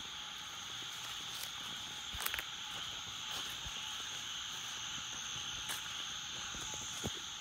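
Steady high-pitched chorus of nocturnal wildlife calling in the dark, a constant outdoor night sound, with a few soft knocks.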